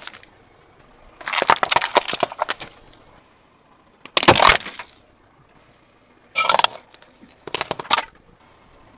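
A car tyre rolling over and crushing small objects one after another: a long crackling crunch about a second in, a single sharp loud crack just after four seconds, then two shorter crunches in the last few seconds as a metal bowl of water beads is flattened and the beads burst.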